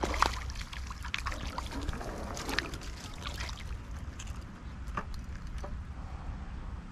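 A hooked fish splashing and thrashing at the water's surface as it is pulled in on a hand pole: a quick run of sharp splashes over the first few seconds, loudest at the start, then only a few scattered clicks.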